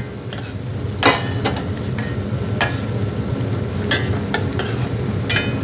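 Radish-and-anchovy braising liquid simmering in a pan on the stove, with scattered sizzling pops and light clicks over a steady low hum.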